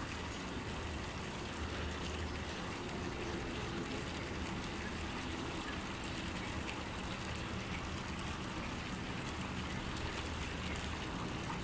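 Steady outdoor background noise: an even hiss with a faint low hum underneath and no distinct calls.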